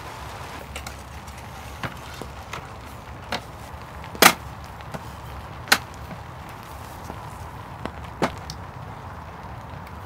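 Scattered sharp knocks and taps of wooden camp-furniture parts being handled and fitted together, the loudest about four seconds in and another near six seconds, over a steady soft hiss.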